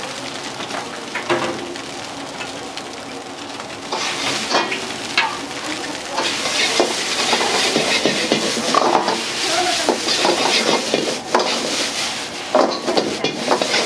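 Egg and rice sizzling in a wok as they are stir-fried, with a metal ladle repeatedly scraping and knocking against the wok. The sizzle gets louder about four seconds in.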